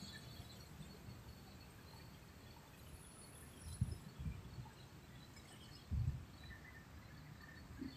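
Faint outdoor background noise, with a few brief low thumps about four seconds and six seconds in.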